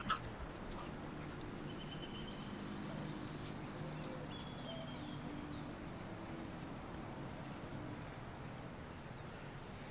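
A steady low hum like a small motor running, with a few faint, short high bird chirps in the middle and a sharp click right at the start.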